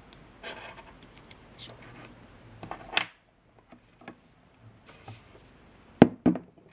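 Handling noise of a Dellorto carburettor body turned over in the hands: light clicks and rubbing. Near the end come two sharp knocks as it is set down on the table.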